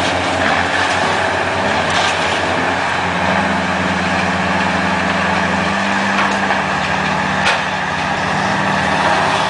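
Heavy truck diesel engine running steadily. Its note shifts about three seconds in and again near six seconds, with a couple of light knocks.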